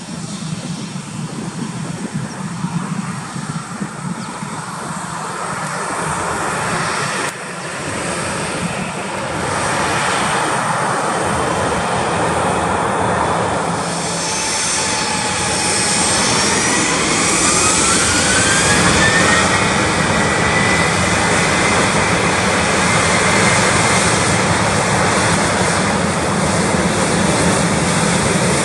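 Boeing 737-800's CFM56-7B jet engines spooling up for takeoff: a whine rises steadily in pitch about halfway through, and the engine noise grows louder as the takeoff roll gets under way.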